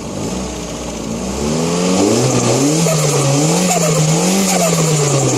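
Turbocharged car engine revved up and held, its pitch wavering up and down, with a loud rising hiss from the turbo. The revs drop back near the end.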